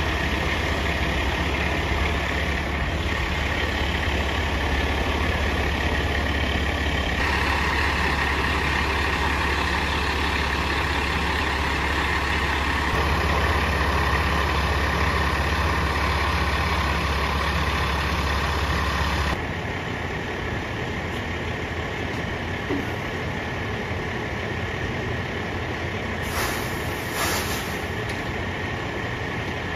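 Fire engine's diesel engine idling steadily with a low rumble, the sound shifting abruptly a few times. Two short high hisses come near the end.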